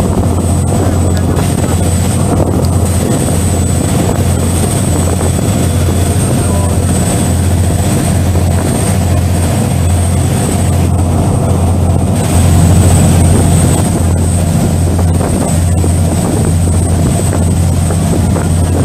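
Passenger ferry's engines droning steadily, with a rush of wind and water over it. The sound surges briefly louder about twelve seconds in.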